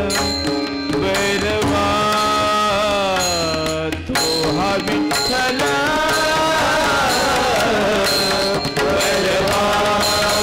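Marathi Warkari devotional bhajan: a man sings long, ornamented held notes that glide down and waver, over a steady sustained keyboard drone. A hand drum plays under the voice for the first few seconds.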